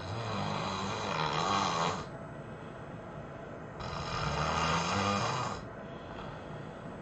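A person snoring heavily: two loud, rattling snores about two seconds long each, roughly four seconds apart, with quieter breathing between them.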